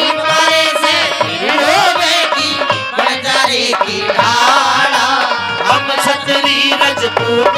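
Live Haryanvi folk stage music: a hand drum keeps a steady rhythm under a wavering, bending melody line.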